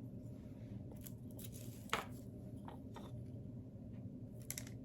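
Faint clicks and taps of small hard pieces being handled, a few scattered through, over a steady low background hum.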